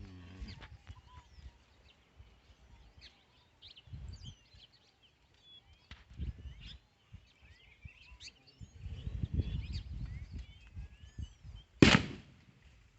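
Sleeping bull snoring: irregular low rumbling breaths about four and six seconds in and a longer run of them near the end, followed by a short loud burst. Small birds chirp throughout.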